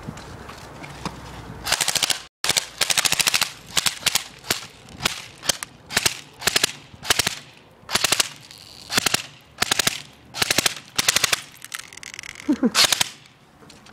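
Airsoft rifle firing short full-auto bursts of BBs at a plastic CD case, each burst a fast rattle of shots. The bursts start about two seconds in and come about twice a second.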